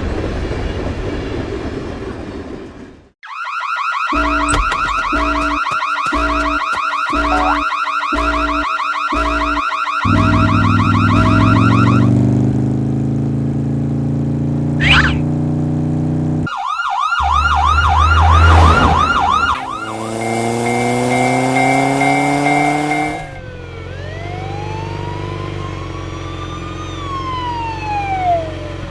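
Synthesized alarm and siren-like sound effects. A rumble cuts out about three seconds in. Next comes a fast-warbling alarm tone over an on-off pulsing beat, then a wailing siren, and near the end long whistle-like sweeps that rise and fall in pitch.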